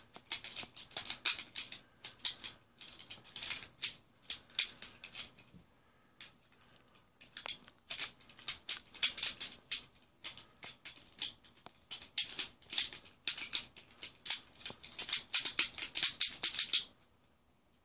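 Plastic pieces of a Gordian's knot interlocking puzzle clicking and rattling against one another as they are slid apart by hand, in irregular bursts with a pause of about two seconds near the middle.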